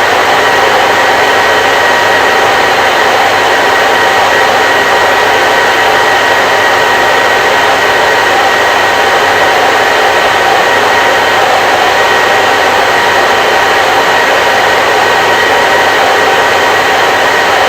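Electric hair dryer running steadily: a loud, unchanging rush of air with a constant motor whine laid over it.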